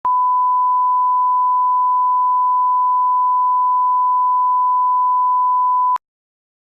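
A single steady electronic beep tone at about 1 kHz, held for about six seconds, then cutting off abruptly into silence.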